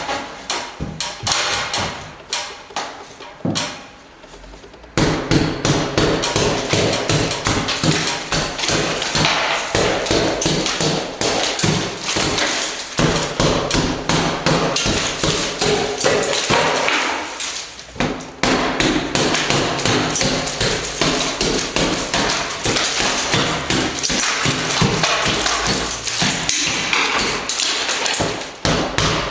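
Hammer striking painted plaster on a ceiling, chipping the paint back to bare plaster so fresh plaster will key to it. A few separate knocks, then from about five seconds in a louder, fast and steady run of blows, with a short pause around the middle.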